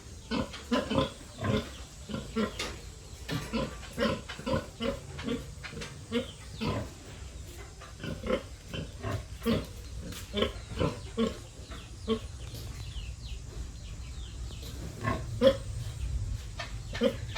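Pig grunting in a long run of short grunts, about two a second, over a steady low rumble.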